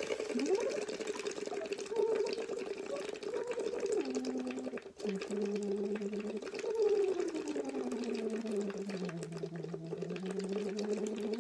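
A voice humming through a straw into a cup of water, so the tone comes out bubbling; this is straw phonation used as a vocal warm-up. The pitch steps down about four seconds in, breaks off briefly about five seconds in, then slides slowly down from about seven seconds and holds low.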